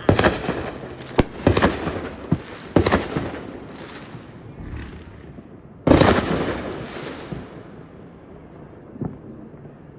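Fireworks going off: a run of sharp bangs in the first three seconds, each with a fading tail, then the loudest bang about six seconds in, trailing off slowly.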